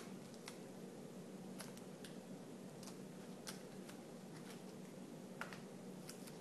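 Faint, scattered light clicks and taps of laptop screen parts being handled, over a steady low hum.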